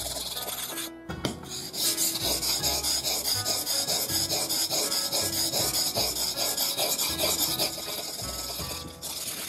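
A Seki Magoroku deba knife blade is stroked quickly back and forth on a wet whetstone, making a rhythmic, gritty scraping that starts about a second and a half in and stops near the end. This is the light final resharpening after rust removal.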